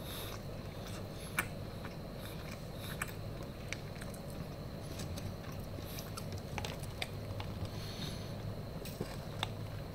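A person eating close to the microphone: chewing, with scattered short clicks, one louder about a second and a half in, over a steady low hum. Near the end, sipping a drink through a straw.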